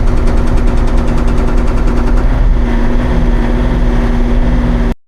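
Hauyee 35c mini excavator engine running hard while its hydraulic breaker hammer pounds rapidly at solid granite ledge, a fast steady hammering over the engine drone. The sound cuts off abruptly near the end.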